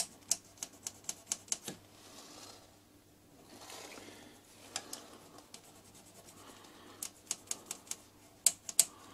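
Small sharpening stone worked back and forth in the steel insert pocket of a face mill, stoning off a high spot so the insert will sit flat. Runs of light, quick clicks at about three to four a second as the stone strokes and taps against the metal, with soft rubbing between them.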